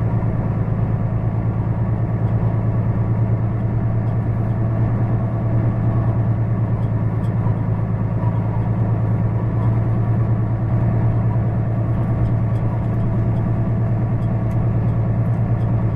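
Kenworth T880 semi truck's diesel engine running steadily at low speed, a deep, even drone while the rig creeps forward under a heavy load.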